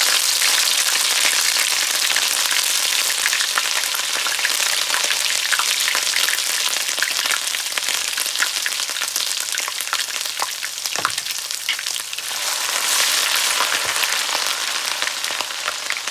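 Crushed ginger sizzling and crackling in hot oil in a wok, with scattered clicks of a spatula stirring it. The sizzle eases a little about twelve seconds in, then picks up again.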